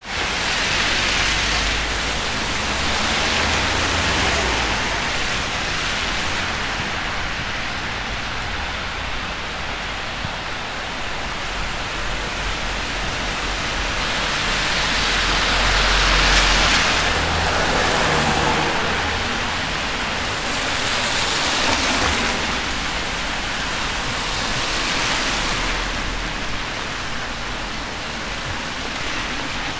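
Steady rain hiss, with car tyres swishing past on the wet road every so often, the loudest pass about halfway through.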